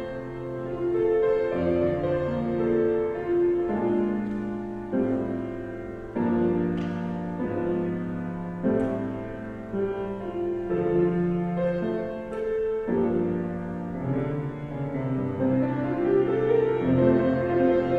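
Church postlude played on a keyboard instrument: slow, sustained chords that change every second or two, each new chord sounding a little louder and then fading.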